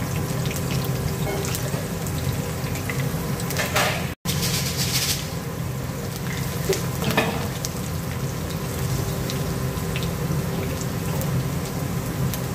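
Garlic sizzling as it fries in oil in a wok, with a wooden spatula scraping and stirring through it. The sound cuts out briefly about four seconds in.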